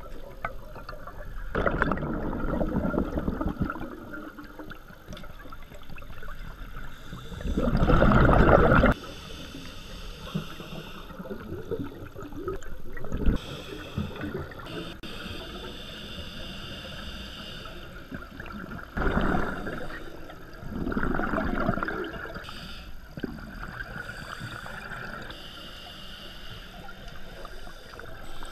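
Scuba regulator breathing, heard underwater: exhaled air bubbling out in about four loud rumbling bursts, the loudest about eight seconds in and cutting off sharply, with quieter hiss between breaths.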